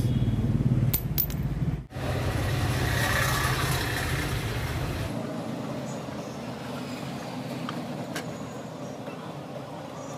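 Steady background traffic and workshop noise, with a low hum that stops about five seconds in, and a few light clicks and taps of hands working the moped's floor mat and panel.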